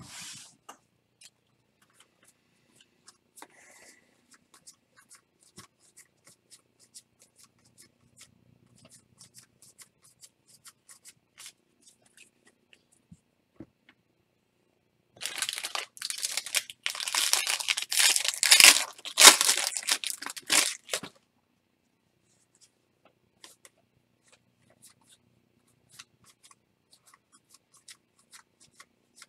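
A baseball card pack wrapper torn open: about six seconds of rough ripping and crinkling past the middle. Faint scattered clicks of cards being handled come before and after it.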